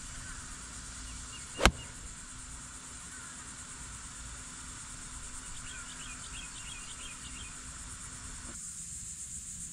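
A golf iron striking the ball off the fairway turf: one sharp, crisp impact about two seconds in, over a steady high insect buzz.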